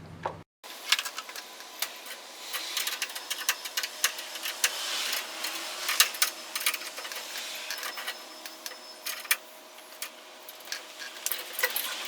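Wrenches tightening the lock nut on a garage door opener's chain-tension bolt: irregular metal clicks and clinks of tool on nut, over a faint steady hum.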